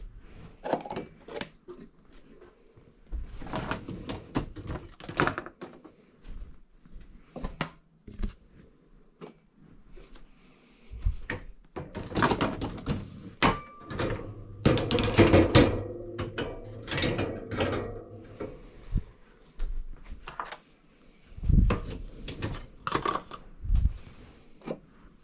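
Dishwasher being unloaded: irregular clinks, knocks and clatter of crockery, glasses and plastic containers against each other and the wire racks, with a few dull thunks like cupboard doors or drawers. The clatter is busiest about halfway through, with a couple of short ringing clinks.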